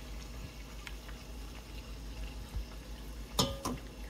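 Maandazi dough pieces deep-frying in hot oil, a steady bubbling sizzle. Near the end come two quick knocks of the wire spider skimmer against the steel pot.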